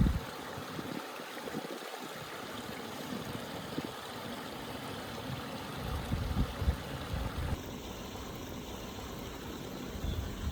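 Steady rush of flowing river water, with a few low thumps and rumbles from about six seconds in.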